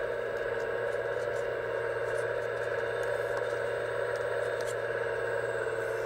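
Hydraulic pump of an RC model excavator running steadily as the grapple saw head rotates and its claws open, with a few faint ticks.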